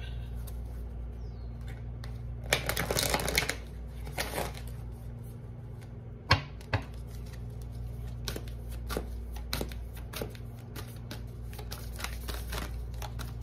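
A deck of tarot cards shuffled by hand: a dense rattle of cards about three seconds in, two sharp taps about six seconds in, then light scattered card clicks over a low steady hum.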